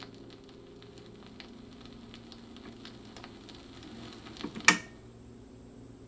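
Vinyl record crackling on a turntable, with irregular clicks and pops over a low hum as faint music fades out. About three-quarters of the way through comes one sudden, very loud sharp crack, led in by a few smaller clicks.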